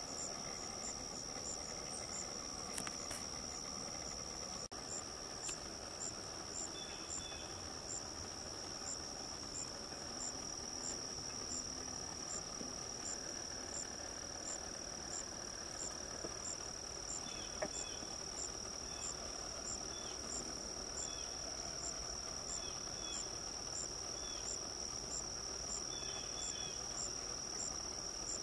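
Insects trilling in a steady high drone, with a higher pulsing call repeating about three times every two seconds. From about six seconds in, short high chirps come in and grow more frequent in the second half.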